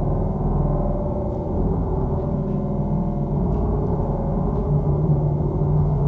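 Live electronic music: a dense low drone of many held tones, with the lowest band growing stronger near the end.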